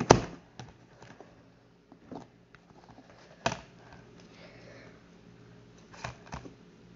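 Handling noises: a few short knocks and taps, the loudest right at the start and a couple more near the end, with quiet rustling between them.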